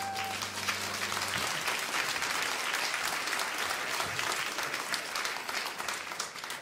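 Audience applauding at the end of a song, over the last held chord, which dies away about a second in. The applause thins out near the end.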